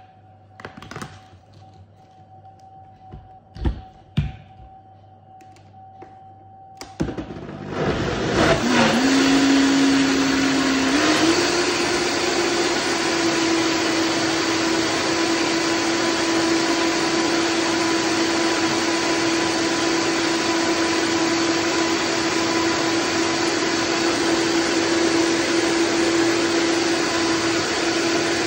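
A few knocks and taps, then a Vitamix blender starts about seven seconds in: its motor spins up quickly and runs loud and steady, blending a thick mixture, its pitch stepping up once a few seconds later.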